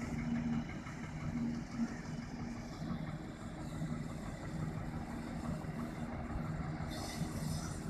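Diesel locomotive engine running steadily with a low hum as it approaches, hauling a passenger train.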